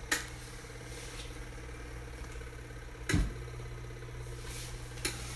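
Small portable washing machine running with a steady motor hum, with a few brief knocks; the loudest comes about three seconds in.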